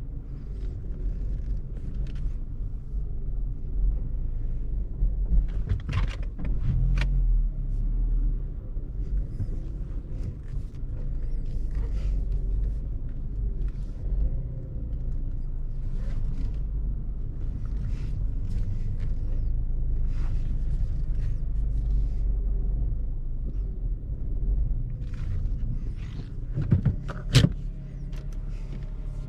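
Steady deep rumble of a Honda CR-Z on the move, heard from inside the car: road and engine noise, with scattered light clicks and a few louder knocks, about six seconds in and again near the end.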